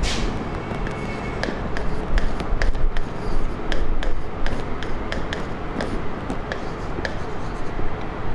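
Stylus tip tapping and scraping on the glass of an interactive whiteboard as words are written: a string of sharp clicks, a few a second, over steady background noise.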